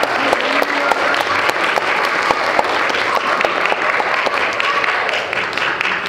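Audience applauding, dense clapping with a few voices among it, dying down near the end.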